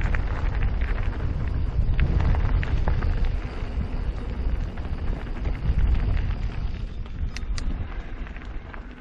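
Wind buffeting the microphone over the rattle and crunch of a mountain bike rolling over a rough, stony trail, with many small knocks from the tyres and frame.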